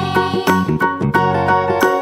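Children's background music with a regular beat and short, quickly changing notes.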